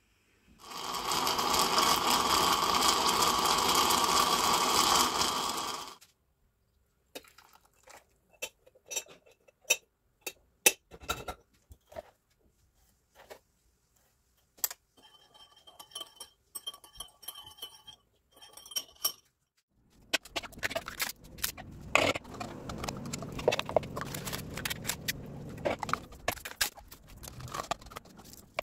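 A stovetop coffee pot hisses and gurgles loudly for about five seconds as the coffee comes up, then stops abruptly. Scattered clicks and ringing clinks of utensils against a ceramic bowl follow. Near the end, a spoon scrapes and knocks steadily in a bowl as ricotta is mixed.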